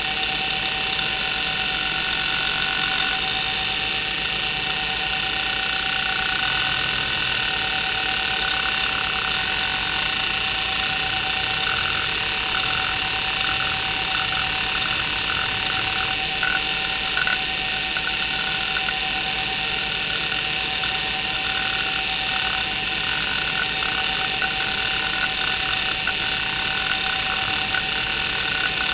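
Maxtor 8051A hard drive with its heads seeking continuously under a test program, a fast stream of fine ticking that gets busier partway through, over the steady high whine of its spindle running on noisy bearings.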